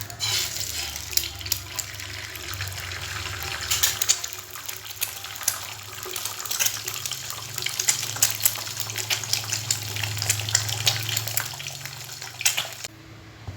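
Running water, like a tap or a pour into a sink, with many small splashes and clicks; it starts abruptly and cuts off suddenly near the end.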